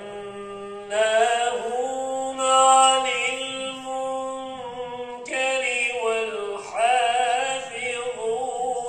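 A man chanting in Arabic in long held notes with wavering, melismatic turns, in the style of a qari's Islamic religious chant. The voice breaks off briefly about five seconds in, then goes on.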